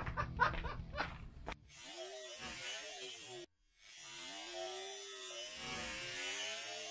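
A low, wavering motor drone whose pitch rises and falls in slow arches: a Worx Nailforce battery nail gun's motor-driven compressor and firing mechanism, played back slowed down. It starts about a second and a half in and breaks off briefly about three and a half seconds in. A few short clicks come before it.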